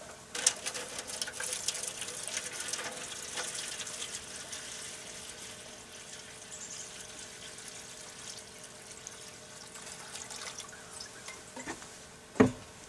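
Water poured steadily from a glass pitcher into a foil drip pan, splashing as it fills. A single sharp knock comes near the end.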